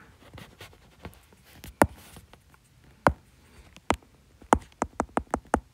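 A stylus tip tapping and clicking on a tablet's glass screen while handwriting math: scattered sharp taps, then a quick run of about five taps near the end.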